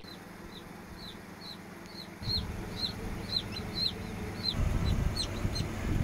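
Newly hatched chicken chicks peeping: short, high, falling peeps, about two or three a second. A low rumbling noise comes in about two seconds in and grows louder near the end.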